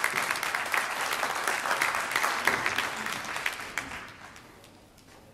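Small crowd of about 150 applauding, dense clapping that thins and dies away about four seconds in.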